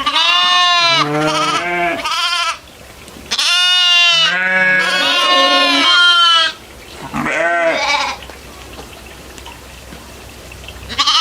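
Goat bleating in three wavering bouts, the middle one longest.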